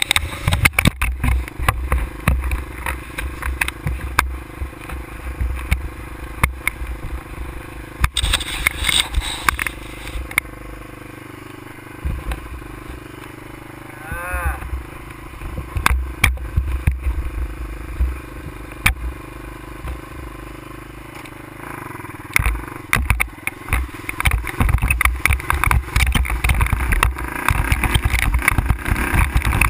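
ATV engine running over a rough dirt trail, with frequent knocks and rattles from the bumps. It drops to a lower, quieter run through the middle, then picks up and runs harder for the last several seconds.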